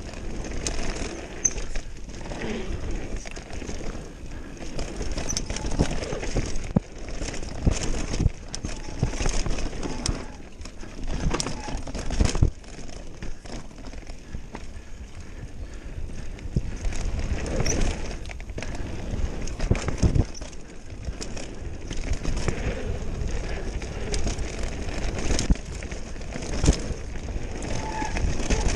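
Mountain bike descending a dirt singletrack at speed: tyres running over dirt, with frequent knocks and rattles from the bike over bumps and a heavy wind rumble on the microphone.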